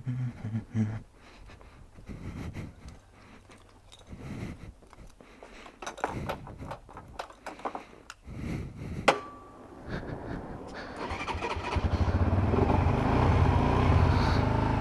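Scattered clicks and knocks of handling, with a sharp click and a short beep about nine seconds in. Then a motorcycle engine starts about eleven seconds in and settles into a steady idle on its stock exhaust.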